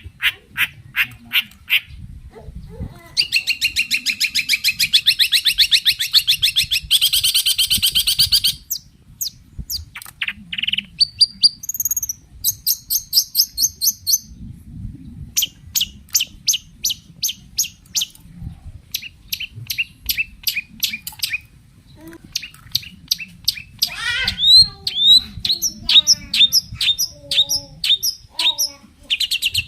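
Long-tailed shrike (cendet) singing hard: quick strings of short, harsh notes, a long rapid trill a few seconds in, and whistled slurs, the varied song of a bird in full voice used to provoke other cendets into answering.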